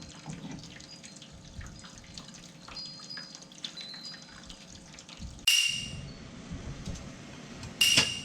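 Pot of water coming to a boil, bubbling and dripping, with two sharp clanks about five and a half and eight seconds in.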